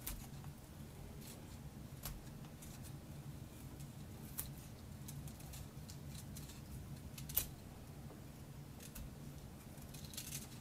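A steel knife blade scraping and shaving soft pine knife-handle scales, making scattered light scrapes and clicks, the sharpest about seven seconds in. A steady low hum lies underneath.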